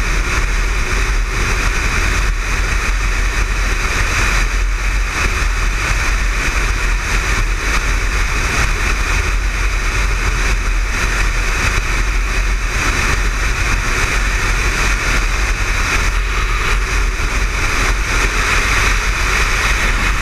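Motorcycle cruising steadily at highway speed, its engine and road noise mixed with a steady rush of wind over the bike-mounted microphone.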